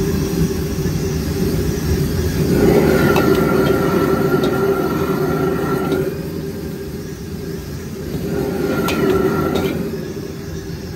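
Gas wok burner running with a steady hum, while a metal ladle and spatula scrape and toss noodles in the wok. Louder scraping from about two and a half to six seconds and again near nine seconds, with a few sharp clanks of metal on the wok.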